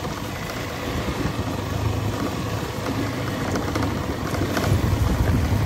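Motorcycle engine running as the bike rides slowly along a wet, muddy dirt road, the tyres on the wet surface under it; the engine grows louder near the end.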